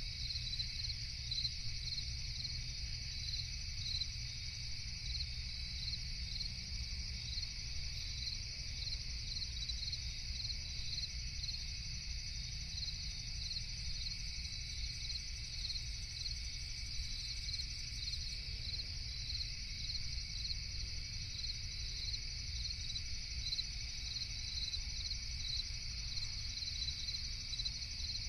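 Night insect chorus of crickets chirping steadily, a regular pulsing chirp about twice a second over a continuous high trill, with a low steady rumble beneath.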